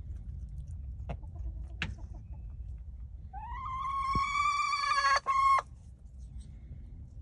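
A chicken gives one long, drawn-out call that rises at the start, holds steady and breaks up just before it stops, about two seconds long. Before it come a few short, sharp clucks from the flock.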